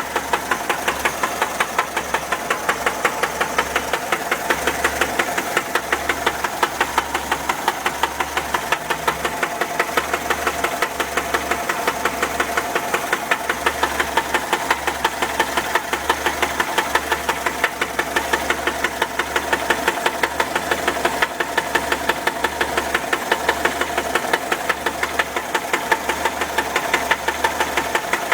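1979 Volkswagen Type 4 air-cooled flat-four engine running at a steady idle with a regular, evenly spaced knock.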